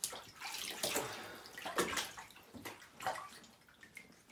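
Shallow bathwater splashing and sloshing in a bathtub as hands wash small puppies standing in it, in a few irregular splashes.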